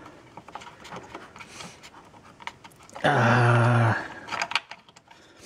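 Scattered light clicks of hands handling plastic parts and connectors in an engine bay. About three seconds in comes a man's low grunt, held at one pitch for about a second.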